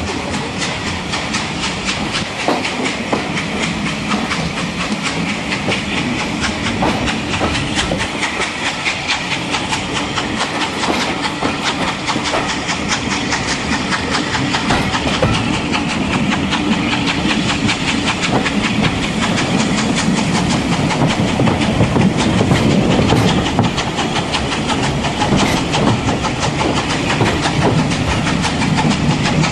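A steam locomotive running at the head of a passenger train: its exhaust and steam hiss mixed with the clickety-clack of carriage wheels over the rail joints, heard from an open carriage window. The noise slowly builds, loudest about two-thirds of the way through.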